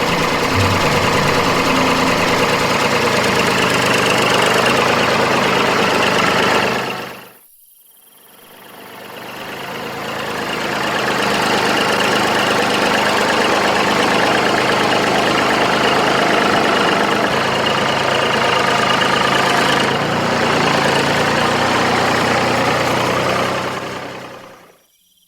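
A small motor running steadily and loudly. It stops about seven seconds in, spins back up over a couple of seconds, runs on, and cuts out shortly before the end.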